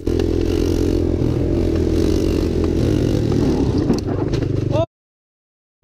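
Quad ATV engines running hard at close range, with a short clatter about four seconds in as the two quads collide. Then the sound cuts off suddenly to dead silence for the last second.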